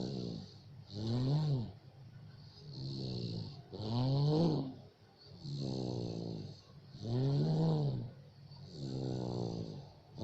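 A sleeper snoring in a steady rhythm, about every one and a half seconds. The snores alternate between one that rises and falls in pitch and one that slides downward, each with a breathy hiss.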